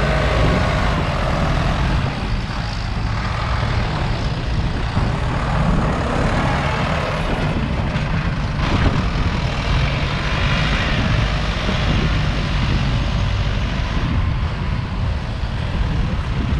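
Diesel farm tractor engine working under load while pushing soil, a steady loud drone with exhaust noise.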